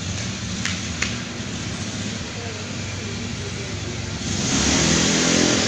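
A motor vehicle's engine running, growing louder and rising in pitch about four seconds in as it passes, over a steady low hum, with two faint clicks near the start.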